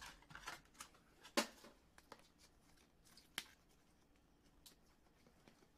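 A quiet room with scattered faint clicks and light taps of small handling noises, and two sharper ticks about a second and a half and three and a half seconds in.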